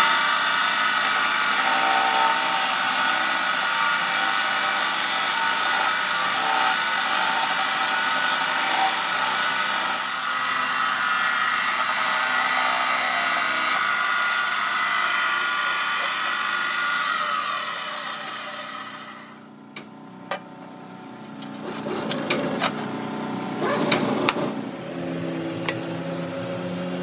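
Abrasive cut-off saw's disc grinding through a steel truck axle shaft: a loud, steady, high grinding with ringing tones that runs for about eighteen seconds, then dies away. After a short lull come a few sharp metal knocks.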